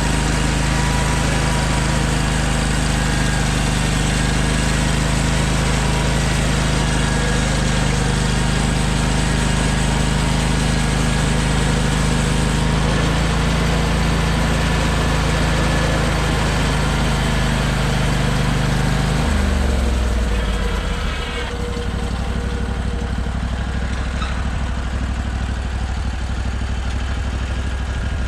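Portable sawmill's engine running steadily at high speed, then throttled down about 20 seconds in, settling to a lower, quieter idle.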